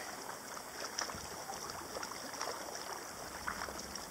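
Water lapping and trickling along the hull of a sea kayak moving slowly on a river, with a few faint drips and small splashes.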